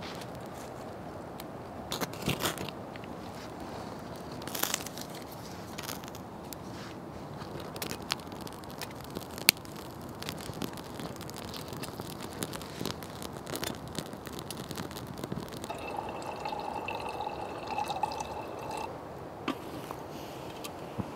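Small wood fire crackling in a folding metal twig stove while twigs are snapped and fed in, with scattered sharp cracks and snaps. A steady tone is heard for about three seconds near the end.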